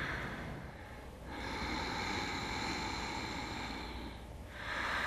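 Ujjayi breathing: slow, noisy breaths in and out through the nose with the back of the throat constricted. One breath fades out, a full breath fills the middle, and the next begins near the end.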